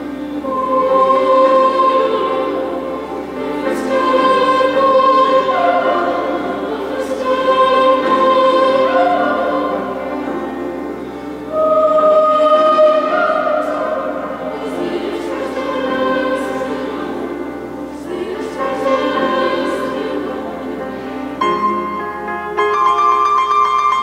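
Boys' choir singing a cappella in several parts, in long held phrases that swell and ease every few seconds.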